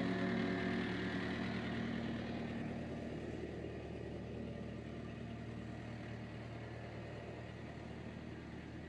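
A vehicle engine running steadily, a low hum under a rushing noise that slowly gets quieter. The tail of background music fades out in the first two seconds or so.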